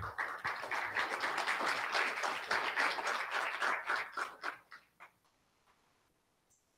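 Audience applause, many hands clapping, thinning out and stopping about five seconds in.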